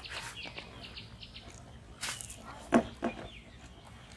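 Birds chirping, with a sharp click about two seconds in and two loud, short sounds close together a little later.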